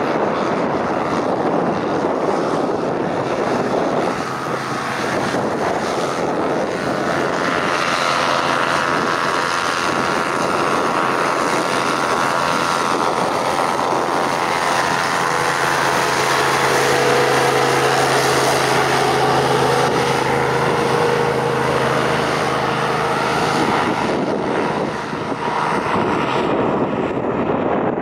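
Christy 463 PC hovercraft running past, its caged thrust propeller and engines making a steady drone, with gusty wind buffeting the microphone. The engine's pitched hum is clearest through the middle stretch.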